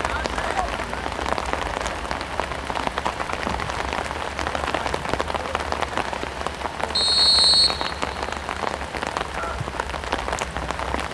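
A referee's whistle blows once, short and shrill, about seven seconds in, over a steady crackling patter and hiss.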